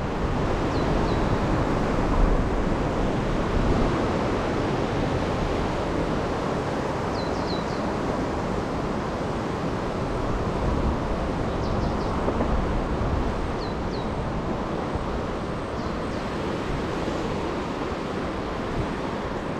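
Rain-swollen river running fast and muddy: a steady rush of flowing water, with wind rumbling on the microphone. A few brief high chirps come through at intervals.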